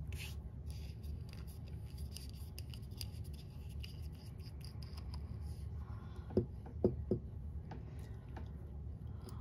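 Small clicks and scratches from handling a glass bottle of smudge-free nail top coat and its brush, with three short knocks a little past the middle, over a low steady hum.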